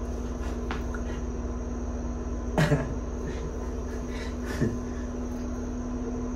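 Steady low electrical hum with a constant pitched tone, broken by two brief louder noises about two and a half and four and a half seconds in.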